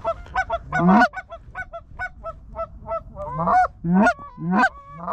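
Goose honking: quick short clucks, about three or four a second, then from about three seconds in longer two-note honks that break upward in pitch, with some calls overlapping.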